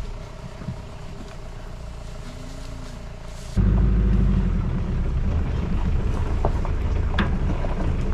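Safari jeep's engine running low and steady. The rumble jumps suddenly much louder a little over a third of the way through and stays there.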